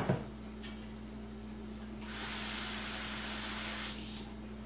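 A sharp knock at the very start, then a kitchen tap runs for about two seconds and stops.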